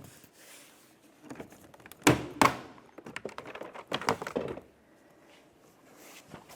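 Plastic interior door trim panel knocking and clattering as it is pulled off the door: two sharp knocks a little after two seconds in, then a run of clatter around four seconds.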